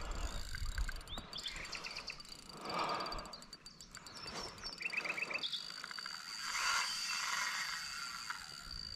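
Outdoor wildlife ambience: a steady high insect drone with scattered bird chirps, including a quick run of about six notes around the middle, and two brief swells of noise, around three and seven seconds in.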